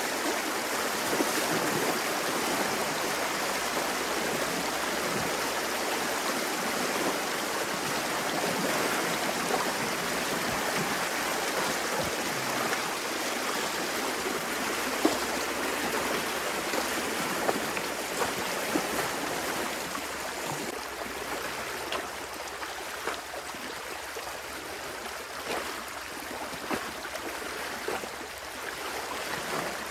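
Water flowing through a breach in a beaver dam down a drainage canal: a steady rush with scattered short splashes, easing slightly about two-thirds of the way in.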